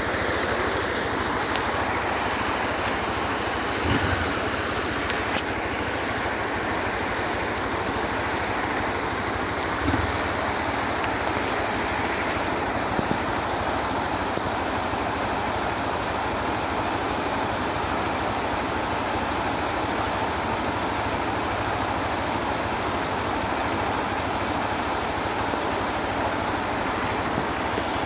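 Steady rush of Iguaçu River floodwater flowing across an asphalt road, with brief knocks about four seconds in and again about ten seconds in.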